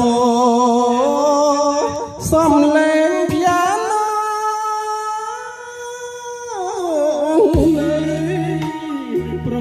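A song with a female singer holding long, wavering notes, played through an IN Power Pro Max powered PA speaker (a subwoofer with a column speaker on a pole). The heavy bass drops out for most of it and comes back in near the end.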